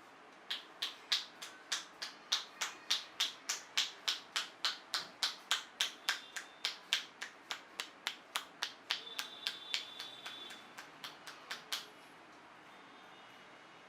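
Barber's hands making sharp snapping cracks in a steady rhythm, about three a second, as part of a head massage; the snaps grow weaker and less even near the end, then stop.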